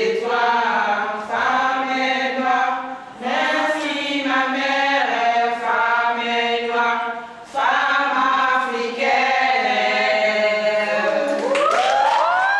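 A small group of women singing a song together unaccompanied, in sustained phrases with short breaks for breath. Near the end a voice sweeps upward into a long high note as the song closes.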